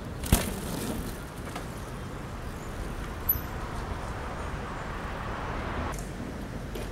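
A BMX bike rolling past on a paved path, with a single sharp knock just after it goes by, then a steady outdoor rush that swells and cuts off abruptly about six seconds in.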